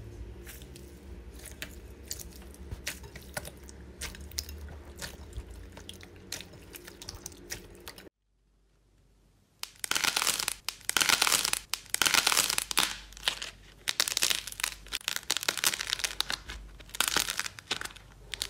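A hand squishing through a bowl of clear green slime mixed with water beads, soft squelching with many small clicks. After a short silence around eight seconds in, hands squeeze and tear apart a dry, crumbly clay figure with a loud run of crackling and crunching.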